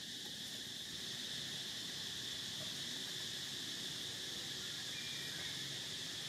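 Steady chorus of insects, a constant high-pitched drone, over faint open-air background noise.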